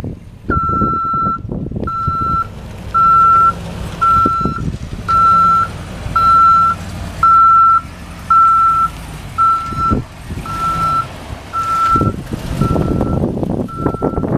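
Vehicle backup alarm beeping in a steady high tone, about once a second, over a truck engine running.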